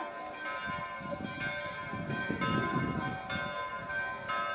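Church bells ringing, struck again and again with each stroke ringing on. A low rumbling noise swells and fades in the middle.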